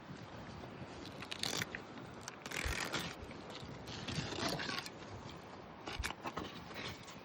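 Knife scraping and cutting on a freshly caught trout during cleaning: irregular rough scrapes and crunches, some short, some lasting about half a second.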